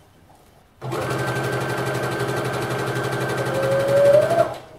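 Electric sewing machine running at a steady speed, stitching ribbon trim onto tulle. It starts about a second in and stops just before the end.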